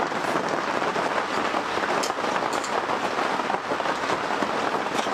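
Heavy rain falling steadily, an even hiss with a few sharper drop ticks.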